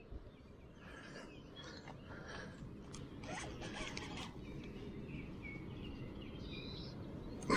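A baitcasting fishing reel being cranked against a hooked fish, heard as faint scratchy winding in short, uneven spells, over a low steady outdoor rumble.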